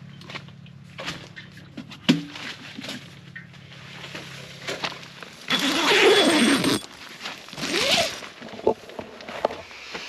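Nylon tent door zipper being run along its track in two loud pulls, about six and eight seconds in, amid rustling tent fabric and a sharp knock from handling gear about two seconds in. A low steady hum runs under the first half and stops about five seconds in.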